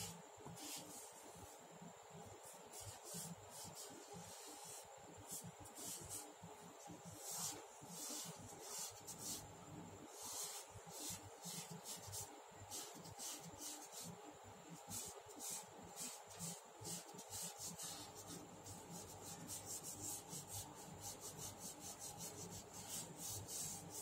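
Faint charcoal-on-paper rubbing by hand: many short back-and-forth strokes, coming faster and closer together over the last several seconds.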